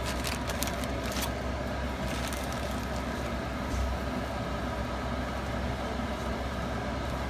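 Steady low mechanical hum, with a few crinkles and light ticks in the first second or so as mini marshmallows are shaken from a plastic bag into a pot.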